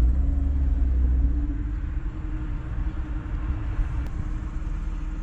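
Car engine and road rumble heard from inside the cabin as the car pulls into a parking space, a low rumble that is strongest in the first second or so and then eases.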